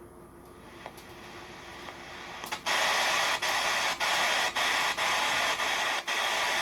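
Radio receiver's speaker giving faint static, then, a little under three seconds in, a loud rushing hiss that breaks off briefly about twice a second as the receiver is tuned across bands.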